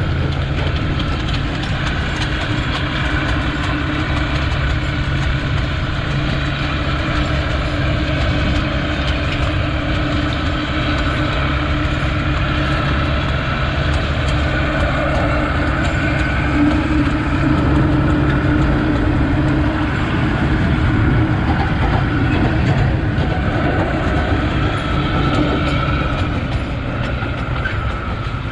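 Steady running noise of a narrow-gauge sugar cane train, its DIEMA diesel locomotive's engine and the loaded cane wagons rolling, heard from a vehicle driving alongside, whose own road and wind noise mixes in.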